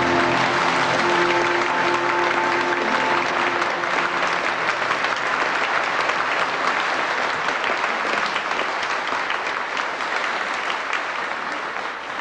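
Studio audience applauding, with the band's last chord ringing for the first three seconds or so; the clapping dies away near the end.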